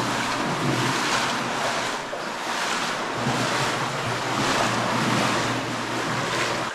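Water rushing and sloshing in a cave river, swelling and easing about once a second, as people wade through it.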